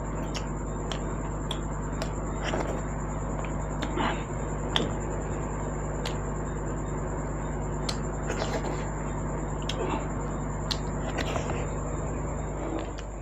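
Close-up eating sounds: wet chewing and smacking with many short mouth clicks, over a steady low electrical hum and a faint high whine.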